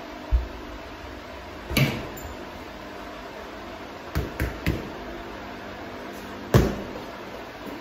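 Punches landing on hanging punching bags, a tall heavy bag and a teardrop water bag. Single hits come about a third of a second in, near two seconds and at six and a half seconds, the last the loudest, with a quick three-punch combination around four seconds.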